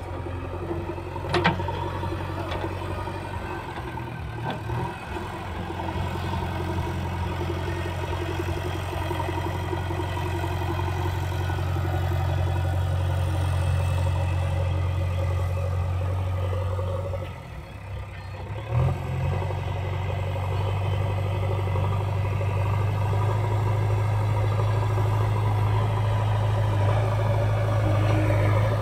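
JCB backhoe loader's diesel engine running steadily under load as the front bucket pushes soil. There is a sharp knock about a second in. Around two-thirds of the way through the engine briefly drops away, then comes back a little louder after a knock.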